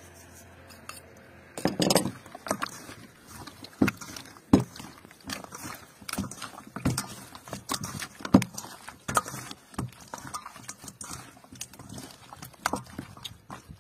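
Raw duck pieces being mixed and kneaded by hand in a stainless steel bowl: irregular wet squelches, slaps and knocks of meat against the metal, starting about a second and a half in.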